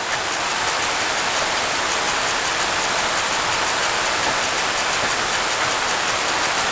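Steady, even hiss of heavy rain during a tornado-producing thunderstorm, with no breaks or single impacts.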